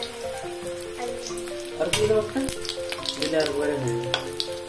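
Chicken pakoras deep-frying in hot oil in a kadai: a steady sizzle with scattered sharp crackles, and a metal spatula going into the oil near the end. Quiet background music plays underneath.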